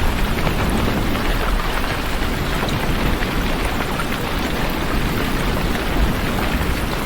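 Heavy rain falling steadily, a dense even hiss with a deep low rumble underneath.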